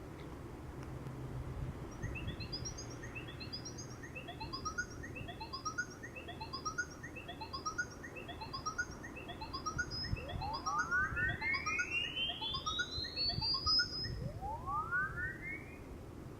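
Sony Ericsson G700 ringtone playing: a run of quick rising chirps, about two a second, then two long upward sweeps in pitch near the end.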